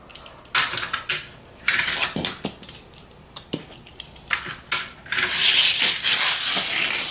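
A die-cast toy car running along plastic Hot Wheels track: a series of separate clacks and clatters as it passes over the track joints, then a longer, steady rattling run from about five seconds in as it races through the loop section.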